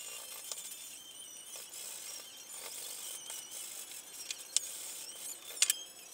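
Hand tools being handled on a wooden workbench: a few sharp clicks and knocks, the loudest two in the second half, as tools are picked up and set down beside leather pieces laid on a template.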